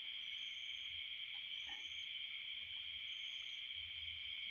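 Steady chorus of night insects such as crickets: a continuous high, even buzz, with short, fainter, higher chirps now and then.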